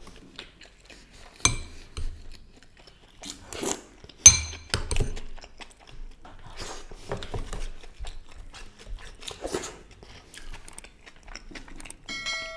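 Close-miked chewing of biryani, with a few sharp clinks of a metal spoon on a plate, one ringing brightly about four seconds in. A short chime sounds near the end.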